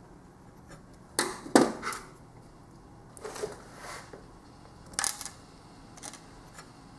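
Short metallic clicks and clatter of a screwdriver and small screws against the TV's sheet-metal chassis as a circuit board is screwed down. Three sharp clicks come about a second in, the middle one loudest. A softer scraping follows around three to four seconds, then a couple of clicks near five seconds.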